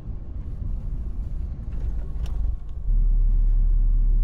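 Low, steady rumble of a bus's engine and road noise heard from inside the moving bus. About three seconds in it steps up abruptly to a louder, even low hum.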